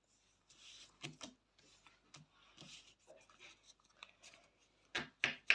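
Football trading cards and their foil packet being handled: soft rustling and scraping with small clicks, then two sharp snaps near the end.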